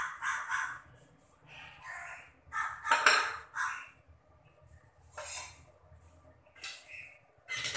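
Steel kitchen utensils clattering and scraping against an aluminium cooking pot in irregular short bursts, the loudest about three seconds in.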